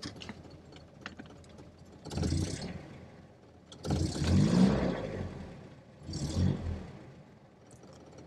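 A Sunbeam Mk3's 2267cc four-cylinder overhead-valve engine being cranked over by its starter in three short attempts, the middle one longest and loudest, without settling into a run. The warm engine is reluctant to start without choke.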